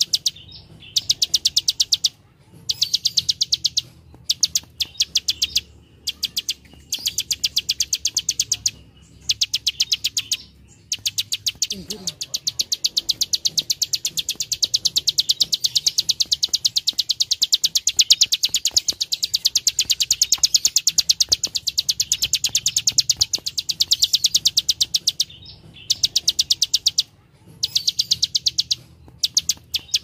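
Plain prinia giving its dry 'klik klik' call: rapid runs of sharp, high clicks, many a second, in bursts of a second or two with short pauses, and one long unbroken run in the middle.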